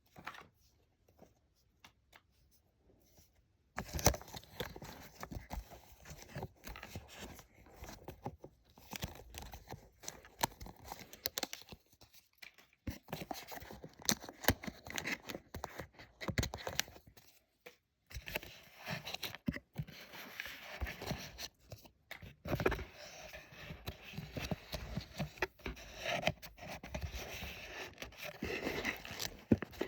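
Packaging being handled and torn open: irregular rustling, scraping and tearing with many sharp clicks, starting about four seconds in after near silence.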